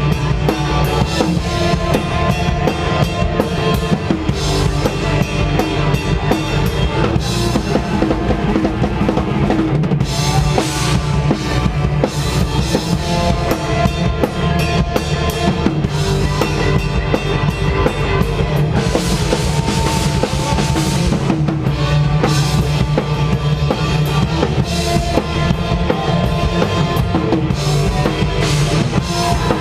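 Loud live hardcore band music playing without a break, the drum kit to the fore: bass drum, snare and cymbals.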